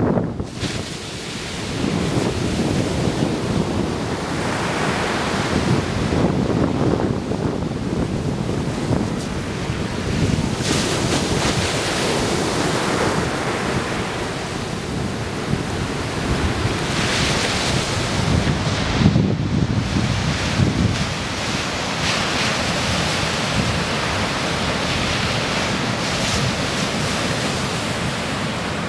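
Ocean surf breaking and washing up a sandy beach in repeated swells, with wind rumbling on the camera's microphone.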